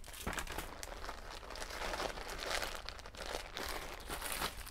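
Plastic packaging crinkling and rustling in the hands, a steady crackle of many small clicks, as items are handled and put back into their bags.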